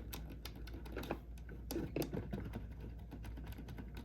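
Irregular small plastic clicks and taps as a reassembled car radio control panel and its buttons are handled, over a low steady hum.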